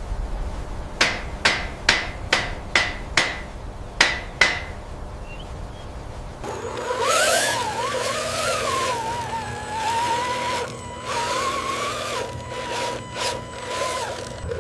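A run of about eight sharp hammer-like knocks, irregularly spaced, some with a short ring. About six seconds in they give way to a whine that wavers up and down in pitch over a steady low hum.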